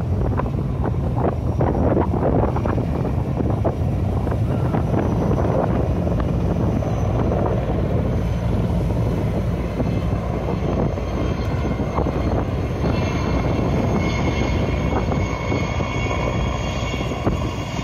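Sikorsky S-64 Skycrane helicopter's twin turbines and rotor, heard across the water as it hovers low to take up seawater and then lifts away. It is a steady drone, with a high turbine whine coming through more clearly about two thirds of the way in.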